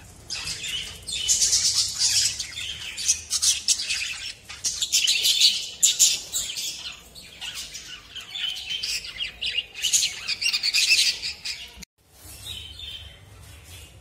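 A group of budgerigars chattering and chirping, many quick high calls overlapping. About twelve seconds in it breaks off suddenly, and fainter chirps follow.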